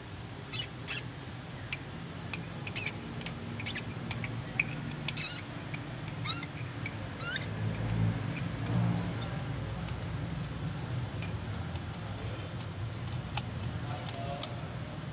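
Small metal clicks and clinks from a diesel fuel injection pump and its parts being handled and fitted, most of them in the first half, over a steady low background rumble.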